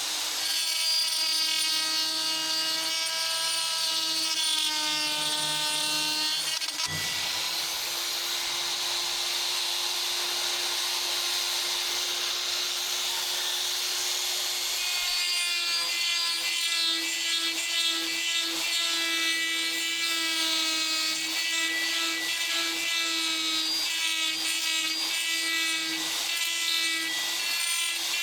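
Electric power tool running at a steady high speed with a hiss of abrasive on metal, typical of grinding a saw-blade steel blank. There is a short knock about seven seconds in, and the motor's whine stands out more clearly again about halfway through.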